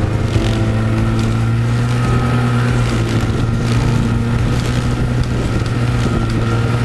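Yamaha snowmobile engine running at a steady cruising speed, heard close up beside the track as it rides along a snow trail.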